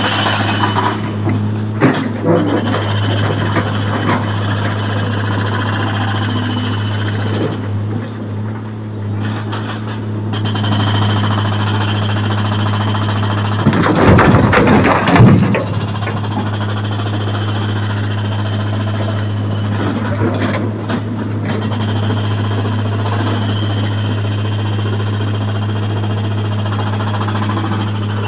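Heavy diesel engine running steadily at a low hum while an excavator loads a tipper truck. About halfway through, broken stone dropped from the excavator bucket crashes loudly into the truck's steel body for a second or two.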